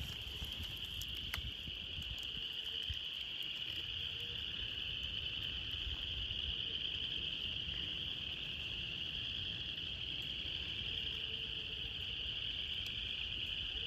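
A steady, high-pitched night chorus of small calling animals, holding at one pitch without a break, with wind rumbling low on the microphone.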